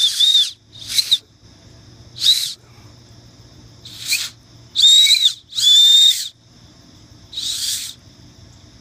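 Acorn-cap whistle blown between the thumbs: about seven short, shrill, breathy blasts, the longest about half a second, some wavering in pitch.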